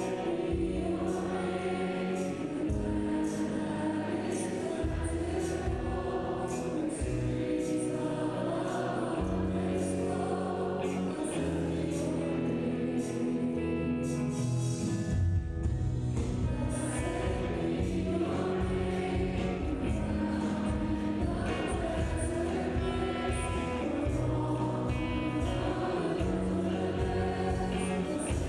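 Church praise band playing a worship song, with several voices singing together over the band.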